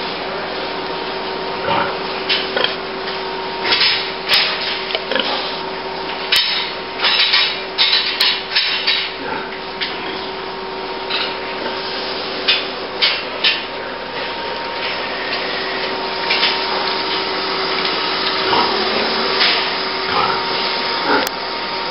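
Sow barn sound: a steady hiss with a constant hum. Over it come irregular short knocks and rattles, most of them in the middle stretch, as sows move about in galvanized steel stalls.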